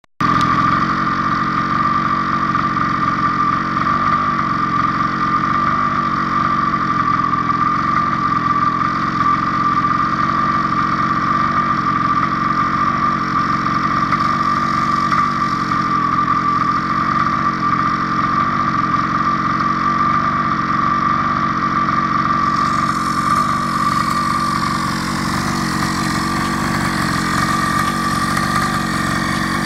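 Mini quad's small single-cylinder petrol engine idling steadily at an even pitch.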